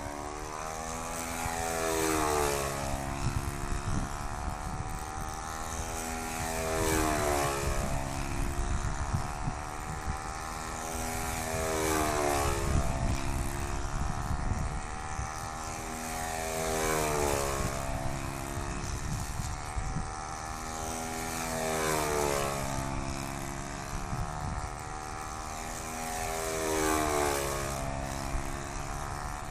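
Saito .56 four-stroke glow engine running steadily on a control-line stunt model, turning a three-blade propeller. Its pitch and loudness rise and fall about every five seconds as the model circles the pilot lap after lap.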